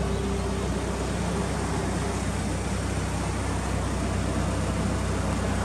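Mitsubishi Lancer Evolution VII GT-A's turbocharged 4G63 inline-four idling steadily, heard from in front of the car.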